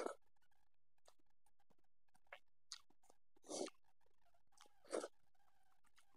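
Faint close-miked eating sounds of rice and curry eaten by hand: a few short chewing and mouth sounds, the strongest at the start, about three and a half seconds in and about five seconds in.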